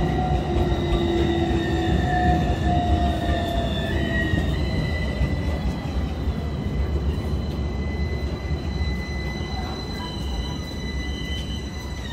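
Modern low-floor tram running past on grassed track: a steady low rumble of wheels on rail with a high, steady whine over it, growing quieter as the tram moves away.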